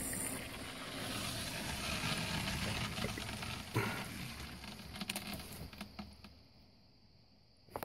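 Water rushing with a steady hiss through a plumbing line just turned on to pressure-test a fresh PEX crimp fitting. The hiss thins out with a few clicks and stops about six seconds in, and a single click follows near the end.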